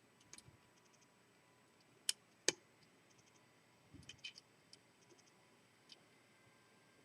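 A lock pick working the pin stacks of a seven-pin Lockwood V7 padlock while it is being picked: faint scattered clicks and ticks, with two sharper clicks about two and two and a half seconds in and a short run of clicks about four seconds in.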